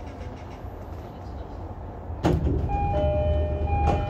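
Low rumble in an electric train's cab, growing louder about two seconds in. An electronic warning tone then sounds, switching back and forth between two pitches, with a sharp click near the end.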